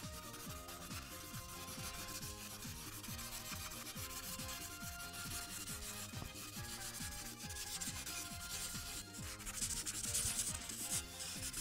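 Felt tip of an Ohuhu paint marker scrubbing on paper in quick back-and-forth strokes while a large area is filled in, louder near the end.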